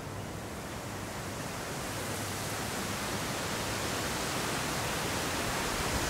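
Steady outdoor swamp ambience: an even hiss with no distinct calls or knocks, slowly swelling louder and brighter from about two seconds in.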